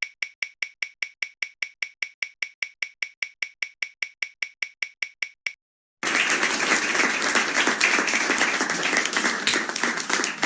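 Spinning-wheel app's ticking sound effect: sharp even clicks about five a second, marking the wheel passing its segments, which stop about five and a half seconds in. About half a second later an applause sound effect plays for the result.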